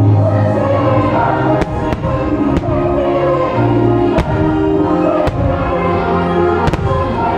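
Christmas fireworks show soundtrack, orchestral music with a choir singing, over fireworks bursting. About seven sharp bangs come irregularly through the music.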